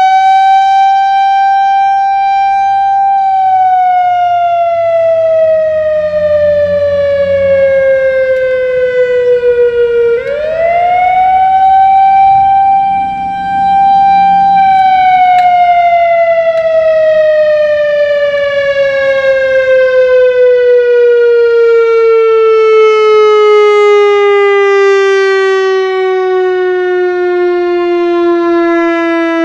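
Whelen WS-3000 electronic outdoor warning siren on an analog controller, sounding a wail. The pitch rises and holds high for a few seconds, then falls. It rises and holds again about ten seconds in, then sinks in a long, slow fall.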